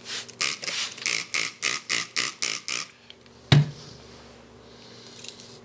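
Quick scrubbing strokes of a blue-steel knife blade on a 320-grit Nubatama Bamboo waterstone, about four a second, stopping about three seconds in. A single sharp knock follows half a second later.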